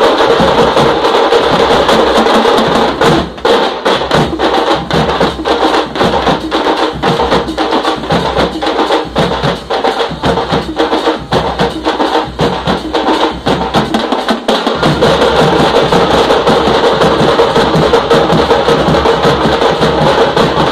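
A tamte drum band: a group of South Indian frame drums beaten with sticks, playing a loud, fast rhythm. About three seconds in, the dense roll breaks into separate strokes, about two a second, then around fifteen seconds in it fills back into a dense continuous roll.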